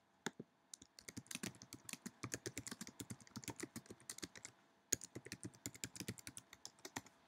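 Typing on a computer keyboard: rapid key clicks in two runs with a short pause between them.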